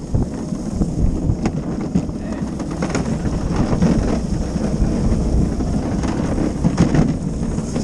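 Gravity luge cart rolling fast down a paved track: steady rumble of its wheels on the surface, with wind buffeting the microphone and a few short knocks along the way.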